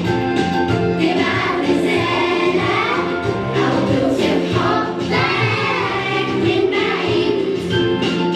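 A song sung by a group of voices over instrumental backing.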